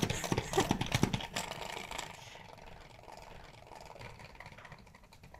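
Pump-style salad spinner drying washed escarole. The plunger is pumped in quick clattering strokes, about three or four a second, for just over a second. The basket then spins on with a fainter whir that dies away.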